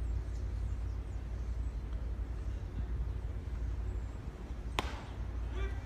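Steady low rumble over an outdoor ballpark, with one sharp crack about five seconds in as the pitch reaches home plate: ball meeting bat or catcher's mitt. Voices start just before the end.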